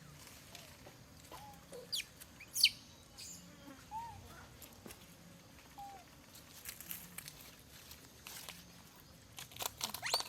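Monkeys giving short squeaky calls over a low background, with two sharp high squeals a couple of seconds in and a burst of clicks near the end.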